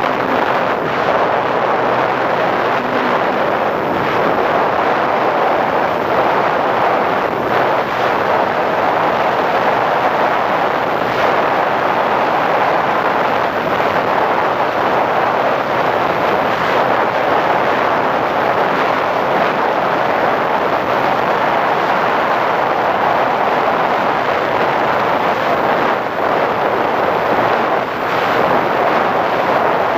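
Steady rush of airflow and propeller-motor noise on the onboard camera of a flying model P-51 Mustang, running evenly without any clear change.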